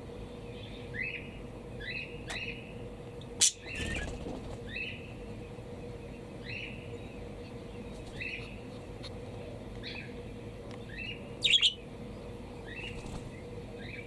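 Budgerigars chirping in short, slightly falling notes, about one or two a second. A sharp click comes about three and a half seconds in and a louder burst near the end, over a faint steady hum.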